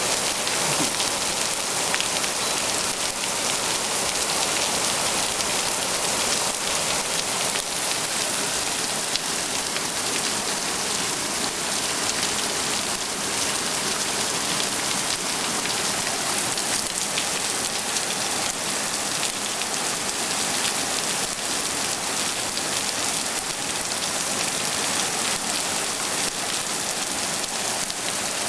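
Heavy downpour from a summer flash storm: steady hiss of rain falling and splashing on surfaces, with scattered drop ticks.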